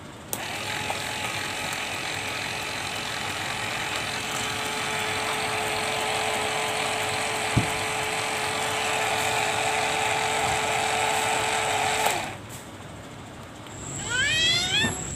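Small DC toy motor switched on and running steadily with a constant hum as it drives the plastic paddle wheels of a homemade boat, then cutting off after about twelve seconds. Near the end, a short run of quick rising chirps.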